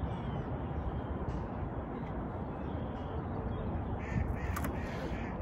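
A few harsh bird calls, strongest about four to five seconds in, over a steady low rumble.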